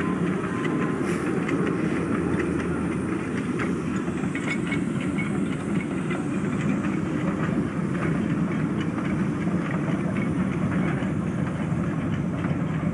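Narrow-gauge train hauled by a 1907 Fowler 0-6-2T steam tank locomotive rolling past with its open passenger carriages: a steady running noise peppered with many small clicks of wheels on rail.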